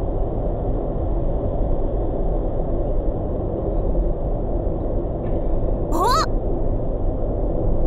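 Steady road and engine noise of a moving car picked up by a dashcam, with a brief rising, warbling bird call about six seconds in.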